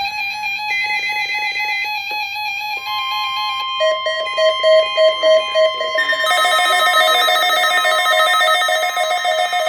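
Electronic music of synthesized beeping tones layered at several pitches, pulsing in a quick alarm-like rhythm, with more tones joining partway through.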